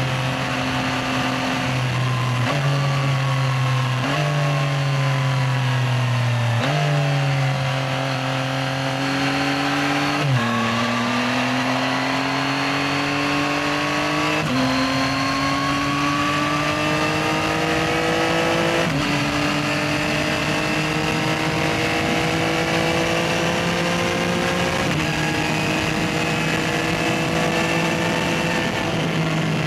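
Yamaha XSR900's 890 cc inline-triple engine running under way. Its note climbs slowly as the bike gathers speed, with abrupt pitch changes every few seconds as gears are shifted.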